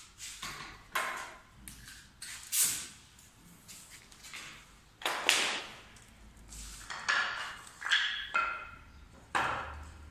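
A series of sharp metallic clanks at irregular intervals, roughly one or two a second, each ringing briefly: hard metal parts striking metal in a workshop.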